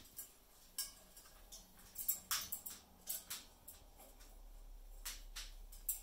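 Scattered short, sharp clicks and taps as an Amazon parrot moves about on top of its cage, in a quick cluster near the middle and a few more near the end.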